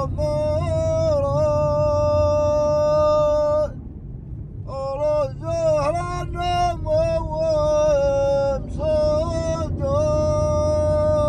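A man's voice singing long, drawn-out notes that bend and waver, with a break of about a second around four seconds in. Under it is the steady low noise of a car driving across sand dunes.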